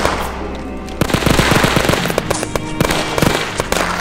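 Rapid, irregular gunfire, many shots a second, starting about a second in, over background music.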